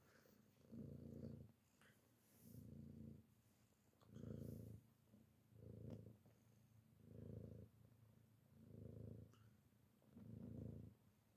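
Tabby cat purring, faint, swelling and fading about every one and a half seconds with its breaths in and out.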